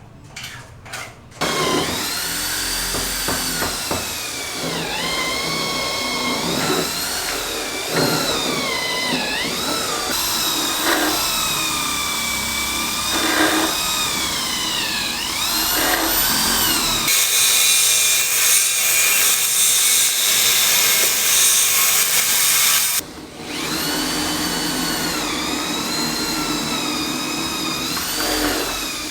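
Electric power tool motor running, its pitch dipping and recovering again and again as it bears into the work. About two-thirds of the way in there is a few seconds of harsh, hissing grinding or cutting noise, which stops abruptly.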